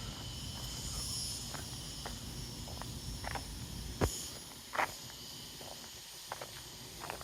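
Steady chorus of night insects over a low outdoor rumble, broken by scattered small clicks and two sharper pops about four and five seconds in.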